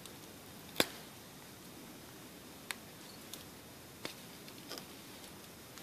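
A few sharp little clicks and ticks of a small screwdriver tip against a smartphone's circuit board and frame as the glued ear speaker is pried loose. The loudest click comes a little under a second in.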